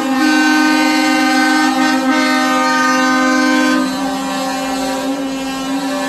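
Truck air horns sounding in long, steady overlapping blasts, at least two held pitches at once; one drops out about four seconds in and the rest carry on a little quieter.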